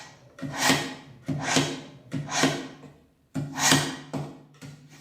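A kitchen knife blade drawn repeatedly through the slot of a manual knife sharpener, a rasping scrape about once a second, about five strokes.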